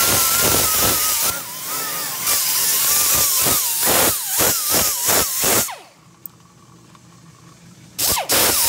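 Pneumatic hand tool running in short trigger pulses: a wavering motor whine over the hiss of exhaust air. It winds down about six seconds in and starts up again near the end.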